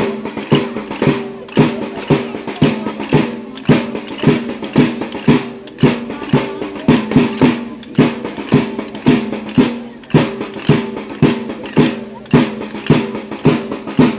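Folk music with a fast, steady drum beat, about two to three strokes a second, over a held low pitched tone.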